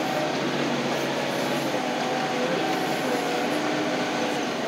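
Heavy machine's engine and hydraulics running steadily while it moves, with a faint whine that drifts slightly in pitch.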